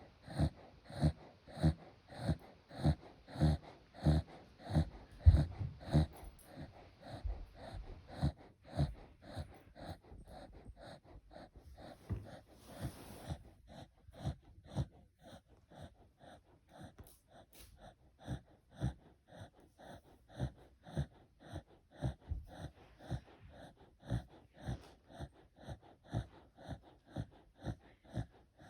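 A sheep snoring in quick, regular breaths, about two a second, louder for the first several seconds and fainter after that.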